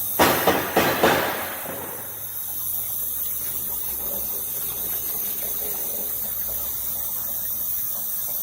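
Several loud bursts of spray in the first second or so, settling into a steady hiss, like water or air under pressure.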